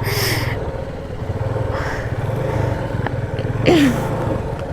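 Motorcycle engine running at low revs, a steady low pulsing rumble, on a muddy off-road trail. Short rushing noises come through twice, and a brief loud falling sound is heard a little before the end.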